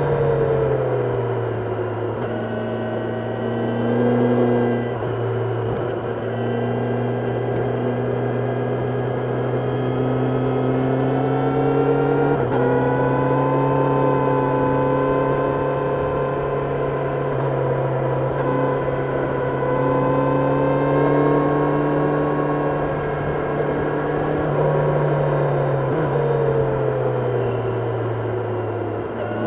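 Kawasaki Ninja 1000SX's inline-four engine running at steady moderate revs under way, its note rising and dipping gently with the throttle.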